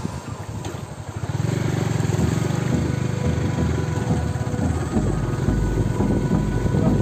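A small engine running with an even, pulsing rumble that grows louder about a second and a half in, with a deeper low rumble joining about five seconds in.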